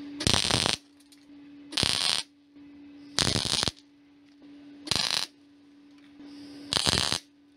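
MIG welder laying tack welds on a strip of steel angle: five short bursts of arc crackle, each about half a second, roughly a second and a half apart, with a steady hum between them.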